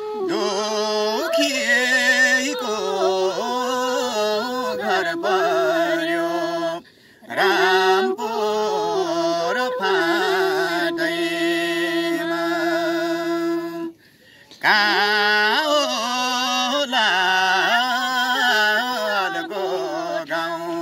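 A man and a woman singing a Nepali dohori folk song in a wavering, ornamented melody, with two short breaks about 7 and 14 seconds in.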